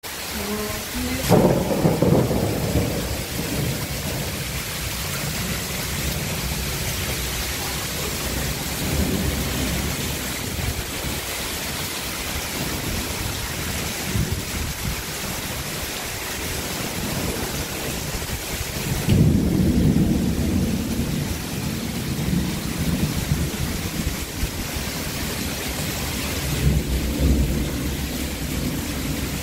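Heavy rain pouring steadily, with several rolls of thunder rumbling over it. The strongest rolls come about a second in and about twenty seconds in.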